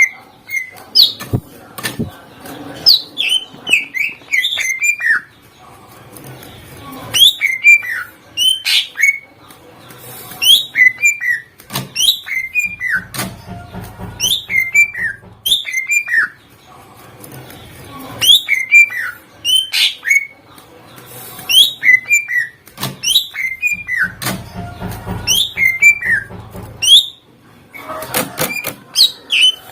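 Greater green leafbird (cucak ijo) singing loudly: clusters of sharp, quickly falling whistled notes, repeating every second or two in a rapid, varied song with mimicked phrases.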